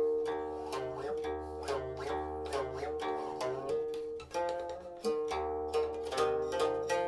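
Silk-string guqin played solo: a run of plucked notes, several sliding in pitch after they are plucked, with a short lull about four seconds in.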